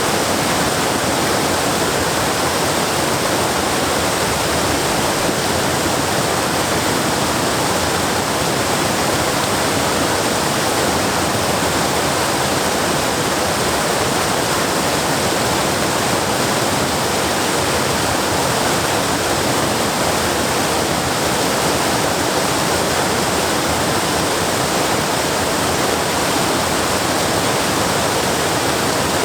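Waterfall rushing: a steady, dense roar of falling water with no breaks or changes.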